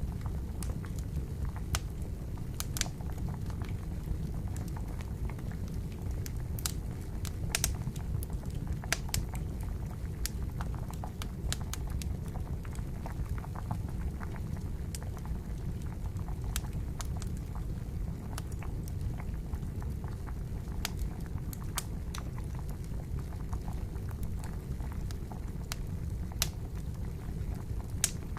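Water boiling in a pot over a wood campfire: a steady low bubbling, with the fire's sharp crackles and pops coming irregularly over it.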